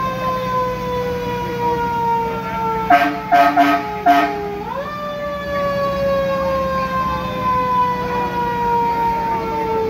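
Fire truck siren sounding: its pitch is pushed up, falls slowly, then is pushed up again about five seconds in. Three short horn blasts come between about three and four seconds in, with a steady low engine hum under it all.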